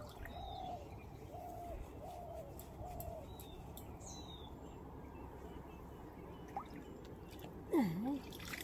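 Birds calling: a run of four short, evenly spaced calls with a few thin high chirps between them, then a louder swooping call that falls and rises again near the end.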